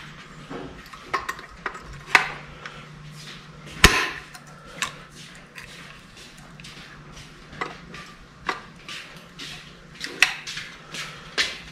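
A hand pop-rivet tool squeezed to set aluminium pop rivets, giving a string of sharp metallic clicks and snaps. The loudest snap comes about four seconds in and another about two seconds in, with lighter clicks between and after.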